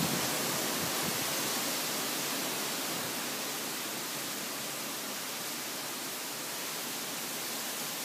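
Typhoon rain and wind: a steady, even hiss with no pitch or rhythm, easing slightly.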